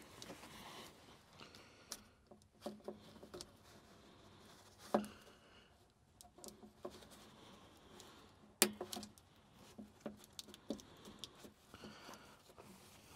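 Zip ties being cut and wiring handled in a UTV engine bay: faint scattered clicks, rattles and rustles, with two sharp snaps about five seconds in and again some three and a half seconds later.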